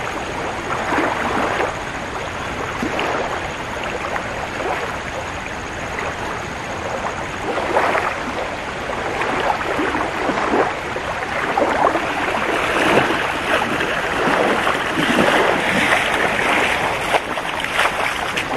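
Flooded river flowing with a steady rush, with irregular splashing and sloshing as a person wades through the shallows and hauls in a wet cast net. The splashing grows busier near the end as he wades out of the water.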